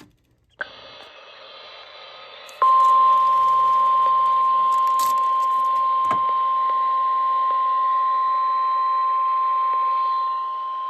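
NOAA Weather Radio warning alarm tone (1050 Hz): one steady high tone that starts about two and a half seconds in and holds, heard through a weather radio receiver with hiss behind it. It is the station's weekly tone alert test signal, the alarm that switches on specially built weather alert receivers.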